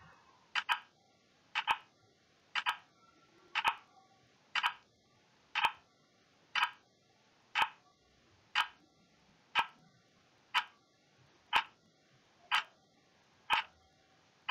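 Clock-ticking sound effect of a countdown timer: a sharp tick about once a second, each a quick double click, marking off a 15-second countdown.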